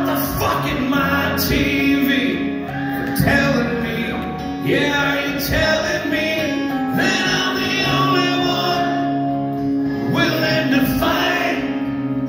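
Live acoustic band music: acoustic guitars with singing, recorded from within the audience.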